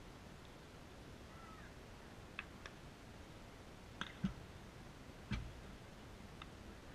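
A few short, faint clicks and two dull thumps close to the microphone, over quiet outdoor background noise.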